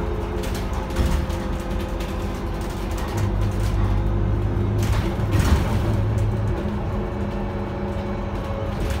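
Interior of an Iveco Urbanway 12 city bus under way, its compressed-natural-gas engine droning steadily along with road and body noise. The low hum grows heavier from about three to seven seconds in, with a knock about five and a half seconds in.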